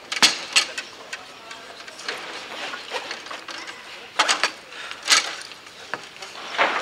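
Bonzini foosball table in fast play: sharp wooden-and-metal clacks of the figures striking the ball and the ball hitting the table, with rods knocking. There are two hard hits right at the start and a burst of hits around four to five seconds in.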